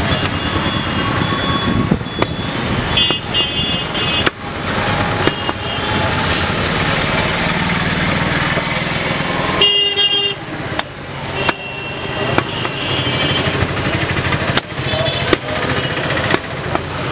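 Busy street traffic with motorcycles and vehicle horns honking several times, one loud blast about ten seconds in. Sharp, scattered knocks of a butcher's cleaver chopping goat meat on a wooden log block come through the traffic noise.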